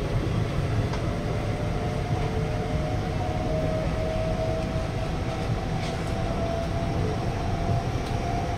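Kawasaki–CRRC Sifang C151B metro train running, heard from inside the carriage: a steady low rumble of wheels on track with a thin motor whine that rises slowly in pitch as it gathers speed.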